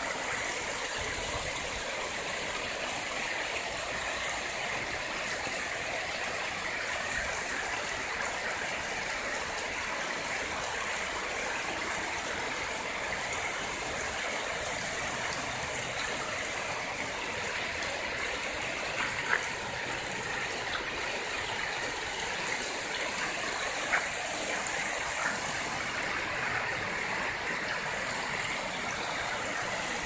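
Shallow river rapids rushing over rocks: a steady, even rush of flowing water. Twice, a little past the middle, a brief click stands out above it.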